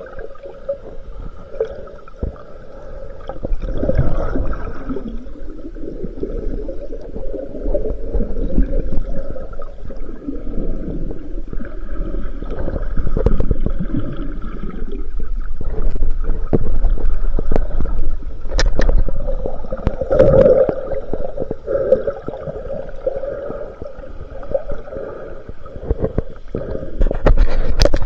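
Muffled underwater noise picked up by a submerged camera: water sloshing and rumbling around it, with a few sharp clicks and knocks scattered through.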